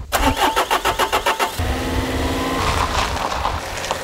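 Hymer Swing 494 camper van's engine being cranked by the starter, a quick even churning for about a second and a half, then catching and running, revving up a little as the van pulls away.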